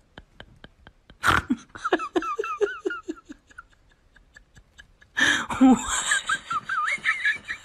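A person laughing in two bouts of short pulses, the first starting just after a sharp knock about a second in, the second louder and higher-pitched from about five seconds in. Faint quick ticking comes before the first bout.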